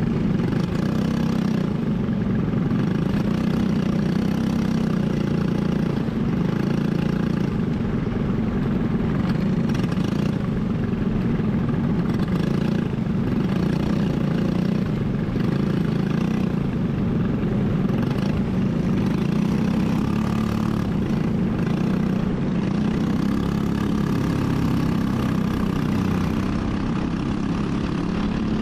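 Briggs & Stratton single-cylinder four-stroke kart engine running steadily at an even pitch.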